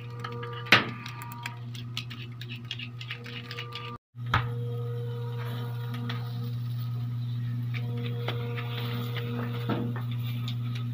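Steady electric hum of a rotisserie spit motor turning a whole roasting pig, with scattered crackles and pops from the glowing charcoal beneath. The sound drops out for a moment about four seconds in, and the hum comes back louder with fewer crackles.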